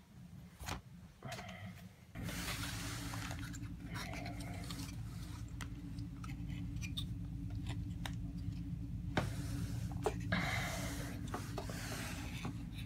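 Cardboard game pieces being handled, rubbing and scraping against each other and the hands, with scattered light clicks. A steady low hum sets in about two seconds in.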